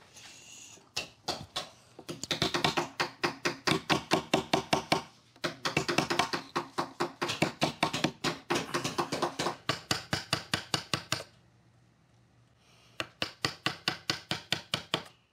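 Mallet tapping a carving chisel into wood in quick runs of light strikes, about four or five a second, pausing briefly twice. This is fine detail carving of a small figure.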